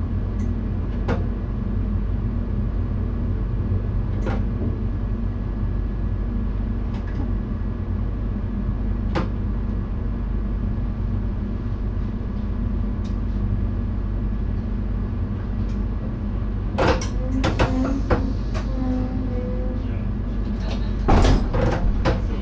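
Steady low hum inside the driver's cab of an NS VIRM double-decker electric train, with a few scattered clicks. About three-quarters of the way in and again near the end come clusters of knocks and clatters, as of cab doors or fittings being handled.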